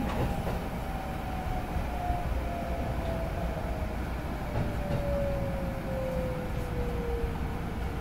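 Electric train running with a steady rumble, its motor whine falling slowly in pitch as it slows.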